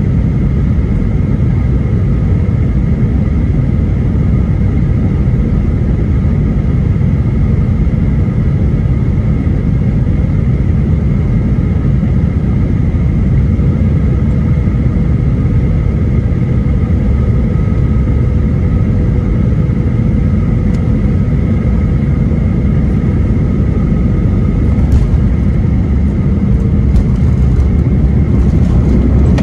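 Cabin noise of a Boeing 737-800 on final approach, heard from a window seat beside its CFM56 engine: a loud, steady rumble of engine and airflow with a held whine from the engine. A few light knocks come near the end, and the rumble grows slightly louder.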